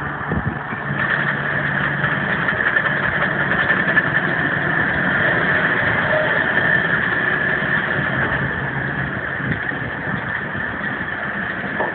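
John Deere hay baler running with its driving engine, a steady mechanical drone with a continuous high whine over it and an occasional knock.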